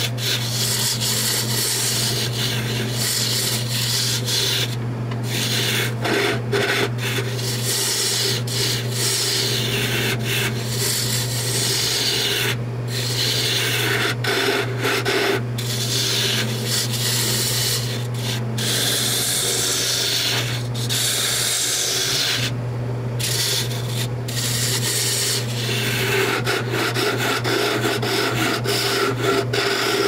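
Carbide chisel cutting wood on a spinning wood lathe: a steady, noisy scraping of shavings being peeled off, over the lathe's steady low motor hum. The cutting noise breaks off briefly a few times.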